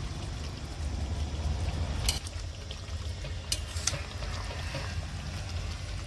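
Fish curry simmering in a metal kadhai, the thick gravy bubbling over a steady low rumble. A few brief sharp clicks come about two and three and a half seconds in.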